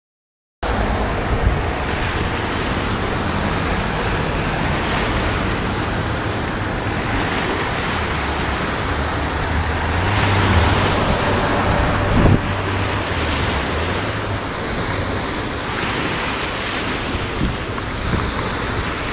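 Wind buffeting the handheld microphone: a steady rushing noise with a shifting low rumble, over the wash of small waves on the water. A brief thump about twelve seconds in.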